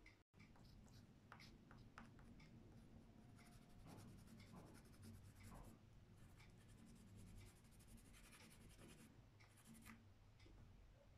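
Faint scratching of a pastel stick drawn across paper in a series of short strokes.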